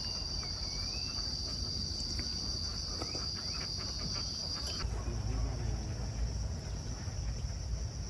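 Insects trilling steadily at a high pitch. One louder, even trill stops abruptly about five seconds in, leaving a softer trill and a low rumble, with a few faint chirps.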